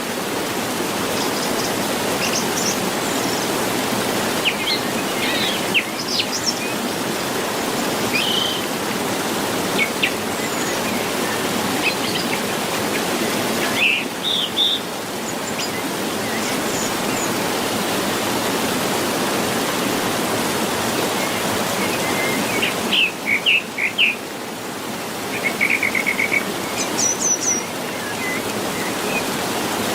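Steady rush of a waterfall with birds chirping over it: scattered short calls throughout, with quick runs of chirps about halfway through and again near the end.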